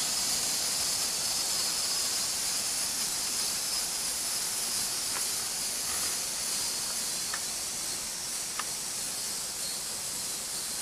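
Steady high-pitched hiss with no speech, with a few faint short chirps in the middle.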